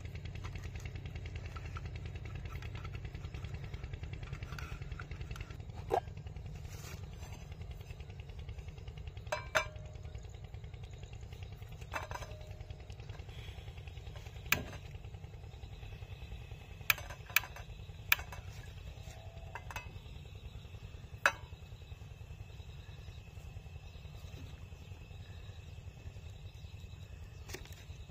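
Metal cooking pots and utensils clinking and knocking now and then, about eight sharp strikes, some ringing briefly, over a steady low rumble.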